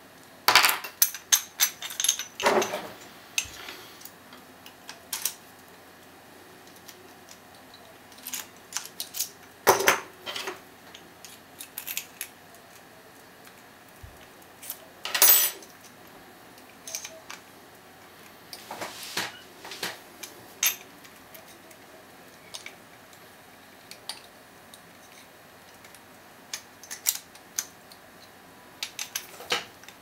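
Sharp metallic clicks and rattles in irregular clusters, from a low-end disc-detainer padlock being handled with its key and then worked with a disc-detainer pick tool. The clicks are loudest in the first few seconds and again around the middle.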